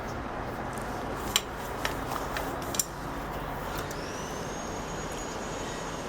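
A few sharp clicks, about a second apart, as small tools touch the multimeter's circuit board while the buzzer is desoldered, over a steady background hum. A faint, thin high whine starts about four seconds in and holds steady.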